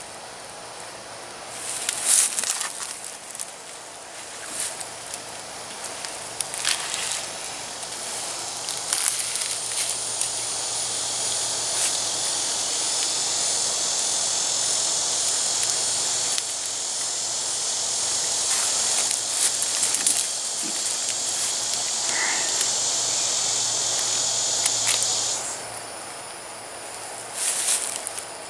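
Insects buzzing in the woods: a steady high buzz that builds up and then cuts off suddenly near the end. Under it are the rustles and knocks of a webbing tree strap being pulled and wrapped around a tree trunk, the loudest of them near the start.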